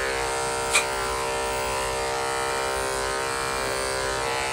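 Corded electric dog grooming clippers running with a steady buzz as they shave a matted Shih Tzu's coat. A single sharp click comes about three-quarters of a second in.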